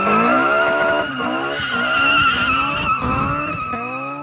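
Car tyres squealing in one long steady screech while the engine revs up again and again, as a car spins donuts. Near the end the squeal stops and the engine fades.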